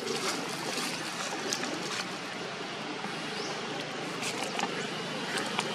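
Outdoor ambience: a steady rushing noise with scattered light crackles and a couple of faint rising chirps.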